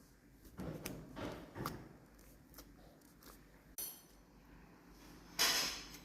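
Slime being squished and pressed by hand: a few short squelches in the first two seconds, a sharp click near four seconds, and a louder squelch about five and a half seconds in.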